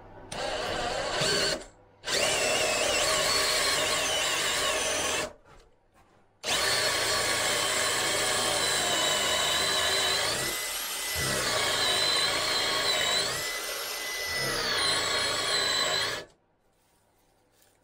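DeWalt cordless drill with a Forstner-style bit boring a mortise hole into a wooden beam, run in three bursts: a short one, one of about three seconds, then a long one of about ten seconds. In the long run its whine dips in pitch twice.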